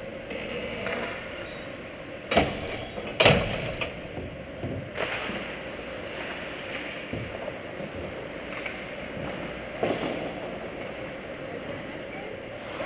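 Ice hockey game sounds in an indoor rink: skates scraping and sticks working the ice against a steady rink background, with two loud sharp knocks about a second apart, two and a half seconds in, and a few lighter knocks later.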